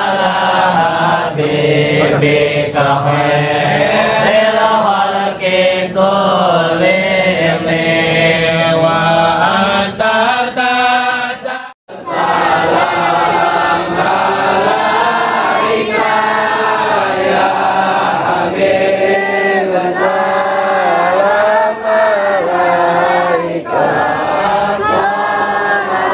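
A group of men chanting sholawat (Islamic devotional songs praising the Prophet) together in unison. The sound drops out for a moment about halfway through, then the chanting goes on.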